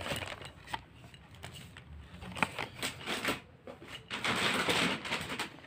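Crackling and rustling of the plastic wrap around a gift basket being handled, with scattered small clicks, loudest for about a second near the end.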